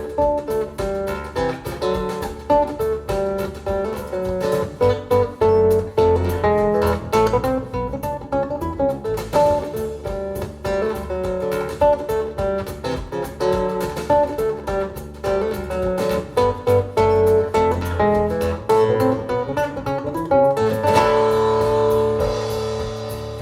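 Guitar instrumental played back over Focal Grande Utopia EM Evo loudspeakers driven by a Western Electric 97A amplifier: a steady run of quickly plucked notes. Near the end a chord is left ringing and fading.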